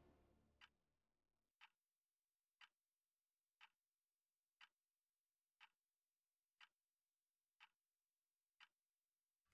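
Clock ticking faintly and evenly, once a second.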